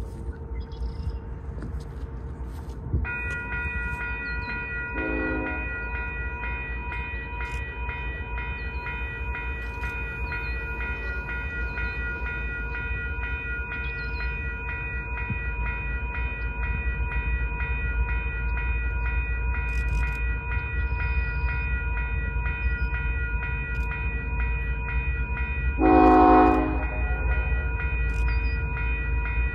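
Freight train locomotive horn: a short toot about five seconds in and a longer, louder blast near the end, over the train's steady low rumble. A bell rings steadily with an even beat from about three seconds in.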